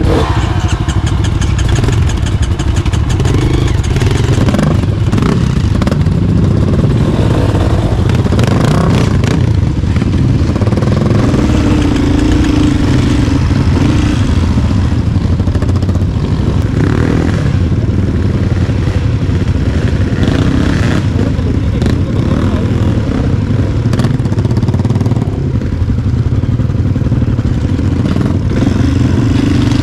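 Off-road dirt bike engine running steadily while being ridden over rough, muddy trail, with scattered clattering knocks from the bike over the ground.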